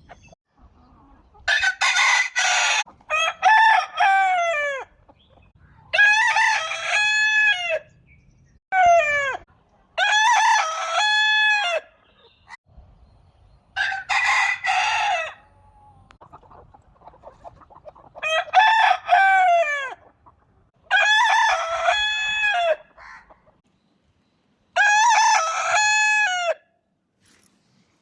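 Rooster crowing over and over, each cock-a-doodle-doo one to two seconds long and ending in a falling note, with short quiet gaps between crows.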